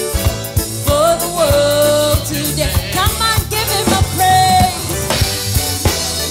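Gospel worship music with a drum kit keeping a steady beat, bass and keyboard, and a voice singing a melody with long held notes.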